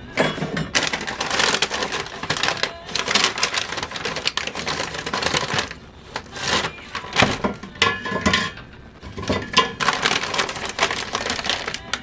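Crisp hard tack (crispbread) crackling and crunching as it is worked: long runs of dense crackle broken by short pauses.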